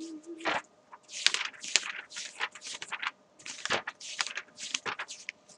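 Pages of a paper textbook being flipped through while searching for a page: an irregular run of short papery rustles, about two or three a second.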